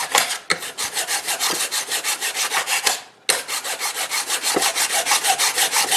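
Hand file rasping back and forth along the edge of an unclad FR4 epoxy-fiberglass board in quick, even strokes, about four or five a second, straightening and rounding off the cut edge. The strokes stop briefly about three seconds in, then resume.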